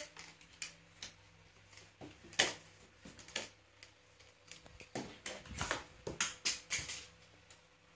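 Scattered light knocks and bumps of a toddler playing on a plastic slide and handling toys, the sharpest about two and a half seconds in and a run of them from about five to seven seconds.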